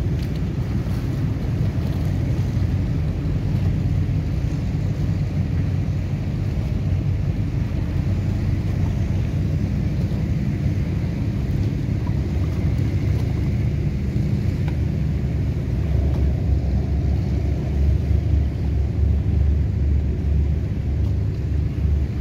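Steady low rumble of many motorboat engines running across the lake, mixed with wind buffeting the microphone. The rumble grows louder about three-quarters of the way through.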